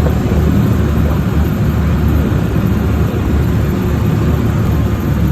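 Amphibious duck boat's engine running steadily, a loud low rumble heard from aboard.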